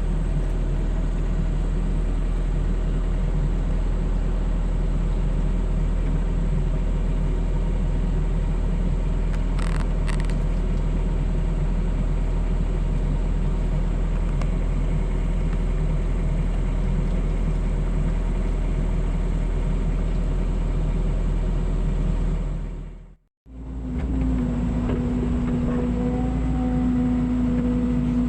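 Mini excavator's engine running steadily with a low rumble. It cuts out for a moment near the end and comes back with a steadier pitched hum.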